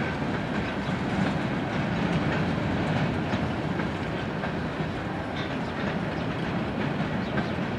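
Freight cars rolling past on steel wheels: a steady rumble with clicks as the wheels cross rail joints, easing off slightly as the end of the train goes by.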